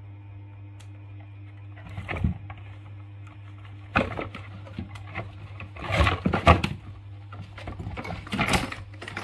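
Two baby macaques scuffling in a plastic toy dump truck: four short bursts of scuffling and knocking, the loudest about two-thirds of the way in, over a steady low hum.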